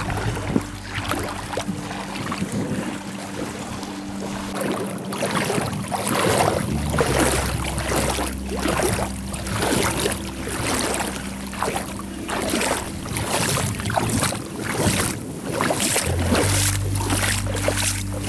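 Water splashing as a person wades through a shallow river mouth, with splashy steps at a walking pace and wind buffeting the microphone.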